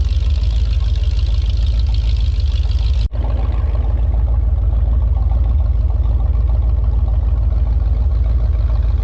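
Jet boat engine running steadily with a strong low rumble. The sound breaks off for an instant about three seconds in, then carries on.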